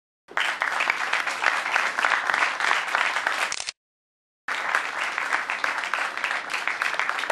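Audience applause, a dense run of many hand claps, which breaks off abruptly about three and a half seconds in, drops out for under a second, then carries on.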